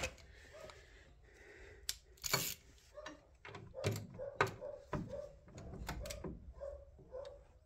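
Ratchet wrench working a bolt on a car's rear suspension: a few sharp metal knocks, then a run of quick clicks through the second half.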